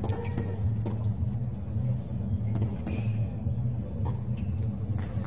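Tennis rally: tennis racket strikes on the ball, sharp pops about a second apart, over a steady low rumble.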